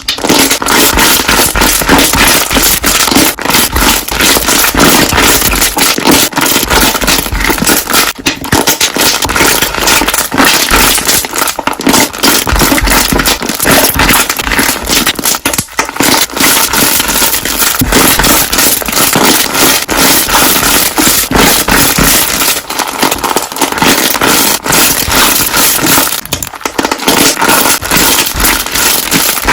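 Slime being pressed and squished, with air bubbles popping in a dense, loud run of crackles and snaps, the so-called construction-site bubble sound.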